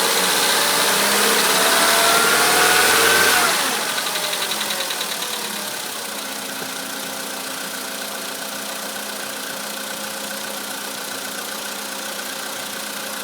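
VW Polo Sedan's 1.6-litre four-cylinder petrol engine revved, its pitch rising, then dropping back to idle about three and a half seconds in. It pulses briefly as it settles, then idles steadily. The owner hears a knock in it that he takes for engine knock, most noticeable when the engine is cold.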